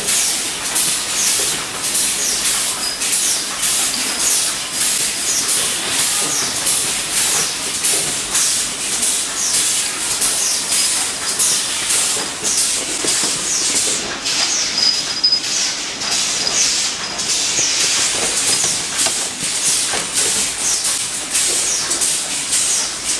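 Multi-station pneumatic machine for gas-spring bed lift supports, its air cylinders hissing in quick repeated puffs, about two a second, as the stations cycle.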